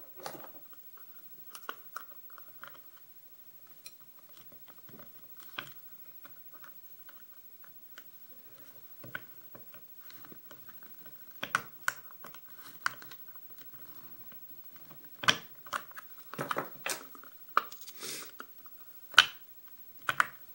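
Small metal tool scraping and clicking against a BASI Euro lock cylinder while prying off its stiff retaining clip; irregular clicks and scrapes, sparse at first and busier and louder in the second half.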